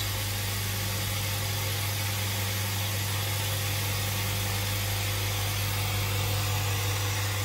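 SIP QT100/10 low-noise twin-motor air compressor running steadily, a constant low hum with an even hiss, as it fills its empty tank.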